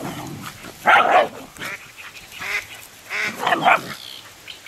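Small dogs barking in short bursts while play-fighting, the loudest bark about a second in and a quick run of barks near the end.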